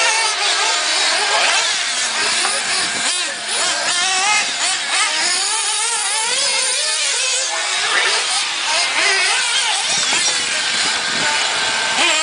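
Several radio-controlled off-road buggies racing around a dirt track, their small motors running high-pitched and constantly rising and falling in pitch as they accelerate and back off.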